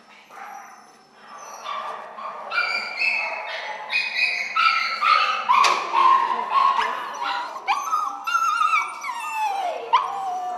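Several dogs whining and yelping at once, their high calls overlapping and sliding up and down in pitch, starting about a second and a half in.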